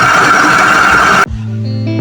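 Haier automatic washing machine running with a loud, steady mechanical noise, the sign of a worn gearbox. About a second in it cuts off suddenly into guitar music.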